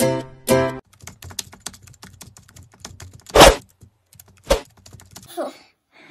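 Intro jingle: plucked guitar chords in a steady beat that stop about a second in, then a run of rapid computer-keyboard typing clicks. A loud hit lands about three and a half seconds in, and a second, sharper hit about a second later.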